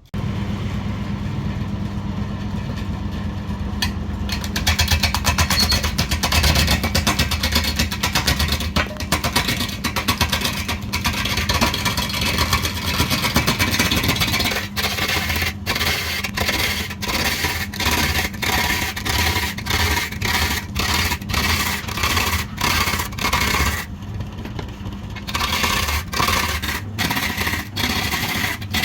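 Electric woodworking machine running with a steady motor hum while a tool cuts and scrapes into wood, in a regular rhythm of strokes about twice a second in the second half.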